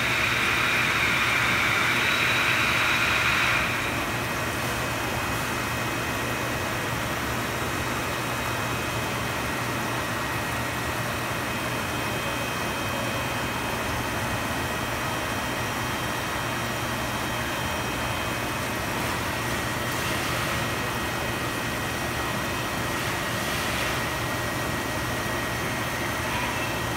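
Steady low hum and hiss of aquarium equipment such as a pump or filter. A louder hissing noise over it stops suddenly about four seconds in.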